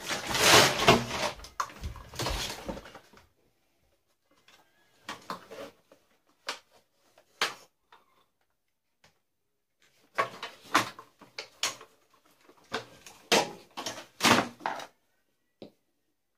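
Clattering knocks of a Dyson DC41 vacuum cleaner's plastic parts being handled and pulled apart during dismantling: a dense run of clatter at the start, scattered single knocks in the middle, and another cluster of knocks near the end.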